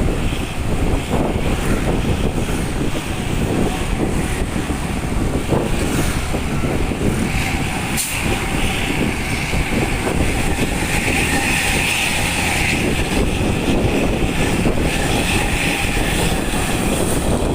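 Hino RK bus's diesel engine running steadily at road speed, its loud exhaust giving a deep snoring note.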